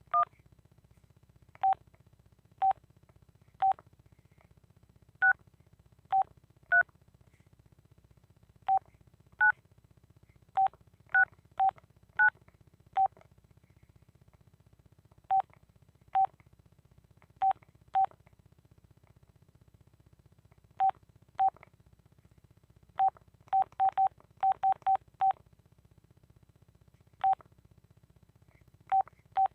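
Keypad beeps of an old Telit mobile phone as its keys are pressed: short beeps at irregular intervals, mostly at one mid pitch with some higher ones, and a quick run of presses near the end.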